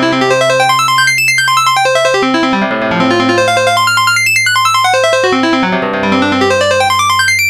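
Fly-Bird v09 mobile phone ringtone: a synthesized electric-piano melody of quick rising note runs over held bass notes, the phrase repeating about every three and a half seconds.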